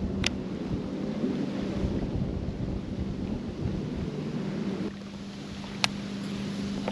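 Wind buffeting the microphone over a steady hum from the boat's motor; the low rumble eases about five seconds in. Two sharp clicks, one just after the start and one near the end.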